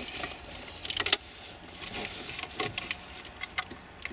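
Handling noise from wires and plastic console parts: scattered clicks and small knocks, with one sharper knock about a second in.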